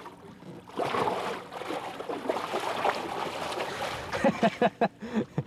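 A hooked muskie thrashing and splashing at the water's surface beside a boat: a stretch of churning splashing lasting about three seconds.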